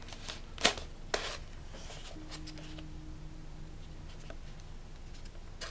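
Handling noise from the plastic canopy hatch of a foam RC warbird model being pulled off its magnet catch: two sharp clicks in the first second or so, then soft rubbing and a few light ticks.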